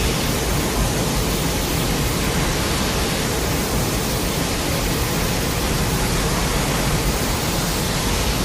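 Steady, even noise like loud static, spread from a low rumble up to a high hiss and unchanging throughout.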